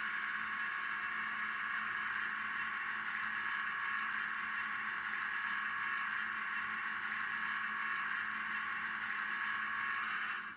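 A steady, unchanging drone that cuts off suddenly at the very end.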